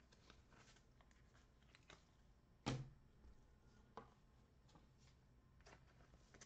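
Faint rustling and ticking of trading cards and packs being handled, with one sharp tap a little under three seconds in and a softer one about a second later.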